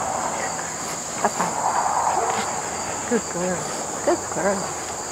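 A steady, high-pitched chorus of insects. A few short, soft voice-like sounds come in over it in the second half.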